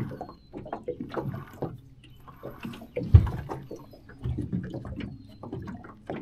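Choppy lake water slapping and knocking against a small aluminum boat's hull in irregular splashes, with one loud hollow thump about three seconds in.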